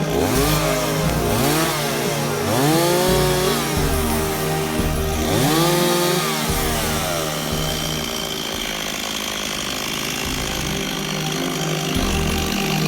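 Two-stroke chainsaw revving up about four times in the first seven seconds, its pitch climbing and holding briefly before dropping back each time, then running more steadily.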